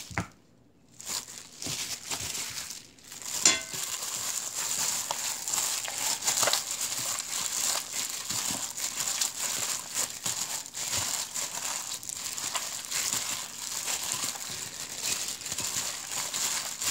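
Hands in thin disposable plastic gloves kneading sliced beef in a soy-sauce marinade: from about four seconds in, a steady, dense crinkling of the plastic gloves against the wet meat. A single sharp click comes just before the crinkling starts.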